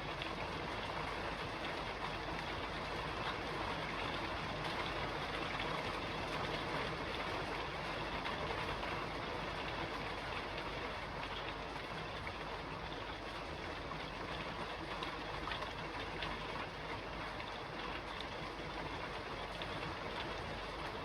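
Steady rain falling on a roof: an even, unbroken hiss of countless drops with faint fine ticks in it.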